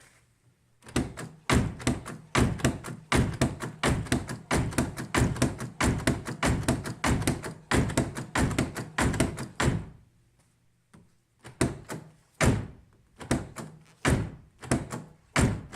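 BMW E53 X5 outside door handle being lifted and let snap back over and over, clacking about three or four times a second, then, after a short pause near the middle, more slowly. The handle moves freely, freshly lubricated after sticking out.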